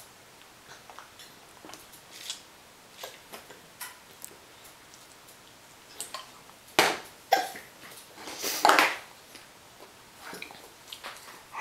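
Scattered small clicks and knocks of toddlers eating at plastic high-chair trays while a sippy cup is handled, with two louder, noisy sounds about seven and eight and a half seconds in.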